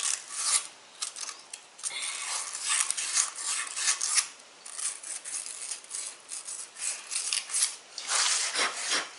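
220-grit sandpaper scrubbing the freeze plug bore of an engine block to clean off crud, in a run of irregular scratchy strokes, with a longer stroke near the end.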